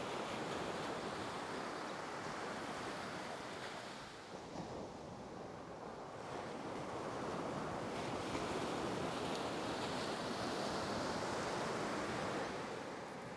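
Ocean surf washing onto a sandy beach: a steady rushing wash that eases about four seconds in and builds again a couple of seconds later.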